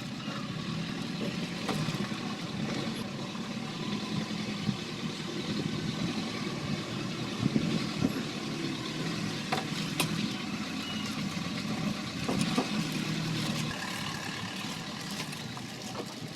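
Mitsubishi Canter's 4D32 four-cylinder diesel engine running steadily at idle, with a few sharp clicks.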